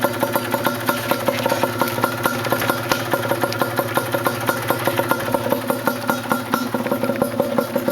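Yamaha DT 125's two-stroke single-cylinder engine idling steadily, with music playing over it.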